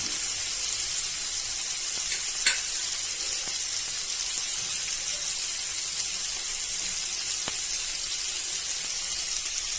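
Cauliflower pieces frying in oil with ground spices in a pan, a steady high-pitched sizzle. A single sharp knock comes about two and a half seconds in.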